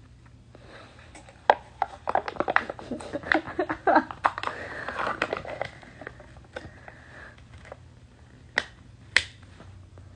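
A foil lid being peeled and crinkled off a small plastic cup. A dense run of crackling and sharp clicks fills the first half, then a few single snaps come near the end.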